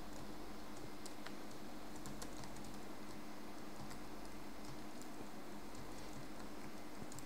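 Typing on a computer keyboard: scattered, faint key clicks over a steady low hum.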